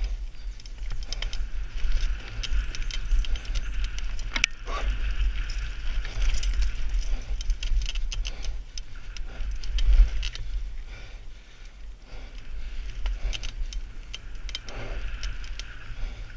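Mountain bike descending a rough dirt forest trail, heard from a helmet-mounted camera: wind rumbling on the microphone under the hiss of the tyres, with frequent clicks and rattles from the bike over the ground. There is a sharp knock about four seconds in.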